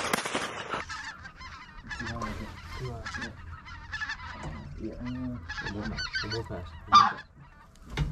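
Geese honking: a string of short honks, with one much louder honk about seven seconds in.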